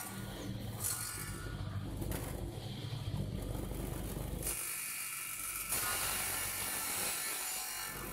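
Table-mounted circular saw running and ripping a strip of wood fed along its fence: a steady motor hum under rough cutting noise. About halfway through, the low hum drops away for about a second while the hissing cut grows brighter.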